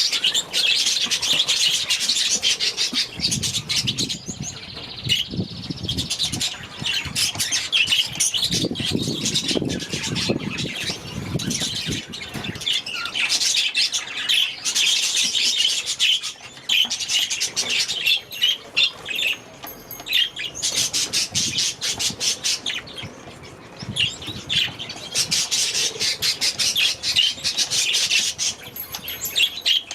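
A flock of budgerigars chattering, chirping and squawking without pause, with wings flapping at times.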